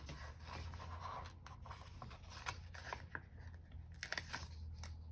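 Paper sticker sheets being handled and stickers peeled: irregular rustling with scattered small clicks and snaps, over a steady low hum.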